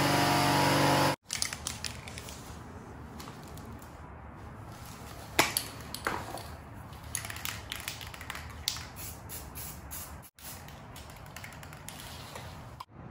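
A power tool runs loudly for about a second and stops abruptly, cutting into a motorcycle's rear fender. After that come scattered knocks and clanks of work on the fender, the sharpest about five and six seconds in.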